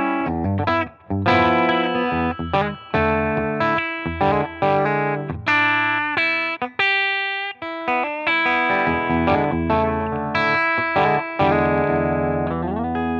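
Electric guitar played through an Oldfield Model 6420 combo amplifier: a quick run of chords and single notes, ending with a note bent upward and a chord left ringing.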